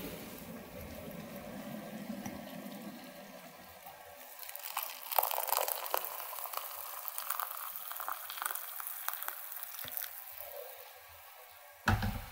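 Electric kettle at the boil; the rumble stops about four seconds in as its switch turns off, and hot water is then poured into a cup. A sharp knock near the end.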